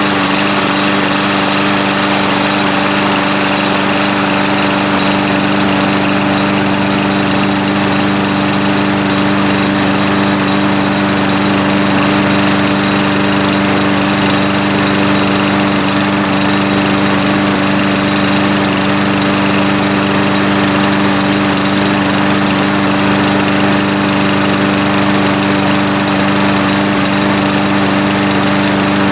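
Craftsman push mower's single-cylinder Briggs & Stratton OHV engine running at a steady speed of about 3000 RPM, with no change in pitch or level.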